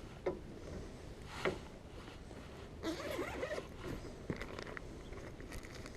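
Handling a bag of soft-plastic baits and tackle while changing lures: scattered light clicks and a short rustling, crinkly stretch about three seconds in.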